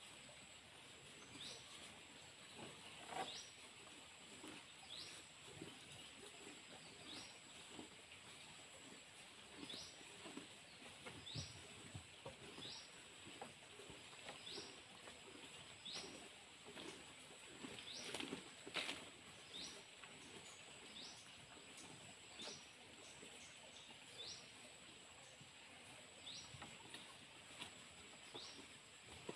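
Cows munching and pulling at cut grass in a trough: soft, irregular crunching and rustling. A bird repeats a short rising chirp about every second and a half, over a steady high-pitched whine.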